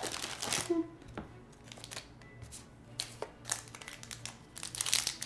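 Foil wrappers of Pokémon TCG booster packs crinkling as they are handled, with busy crinkling at the start and again over the last couple of seconds and a quieter stretch between.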